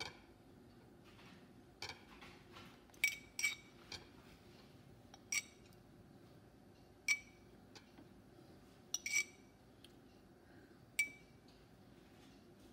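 Metal spoon clinking against a glass jar and a ceramic plate as chutney is spooned out and spread. There are about eight sharp clinks, irregularly spaced, each ringing briefly.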